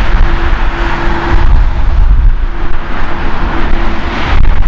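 Boeing 787 Dreamliner's GEnx turbofan engines running at taxi power as the airliner rolls toward the runway. A loud, steady jet rumble with a low hum that comes and goes.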